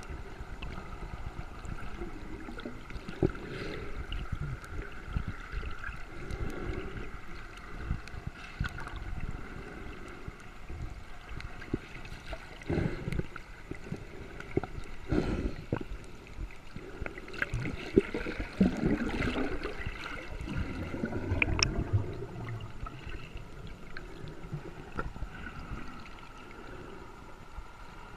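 Water gurgling and sloshing close to the microphone, with scattered sharp knocks.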